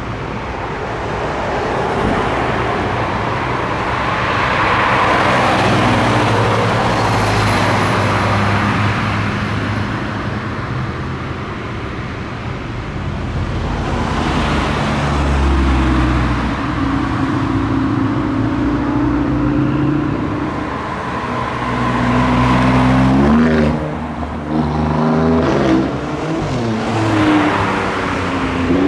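Car engines: a car drives past, then an engine idles steadily before revving up and down several times near the end.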